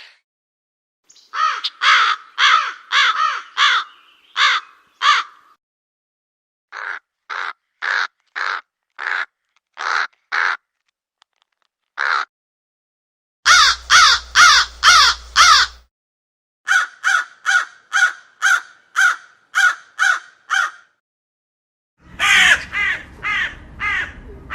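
Crows cawing in several quick runs of five to eleven caws each, two to three caws a second, separated by short silences, with one lone caw between two of the runs. A low hum sits under one run about halfway through.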